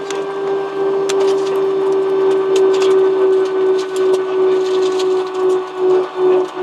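Cabin noise of an Airbus A320-family airliner rolling out on the runway just after landing: a steady jet-engine hum holding one constant tone over a wash of noise, with scattered light knocks and rattles. Near the end the noise swells and dips a few times.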